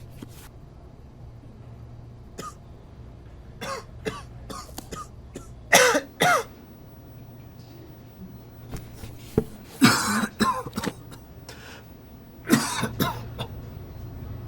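A person coughing in short fits, with throat clearing. A few small coughs come first, then the loudest two coughs about six seconds in, a longer fit around ten seconds in, and another burst near the end.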